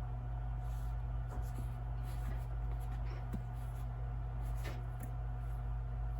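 Steady low electrical hum, with a few faint scattered rustles and light taps of a sneaker being handled.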